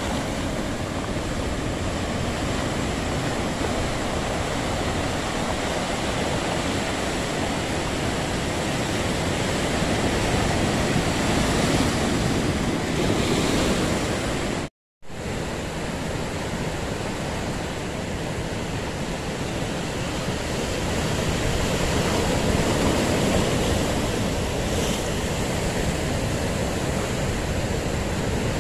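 Ocean surf breaking among rocks and washing up a pebble beach: a steady rush of water that swells and eases as waves come in. About halfway through, the sound cuts out completely for a moment.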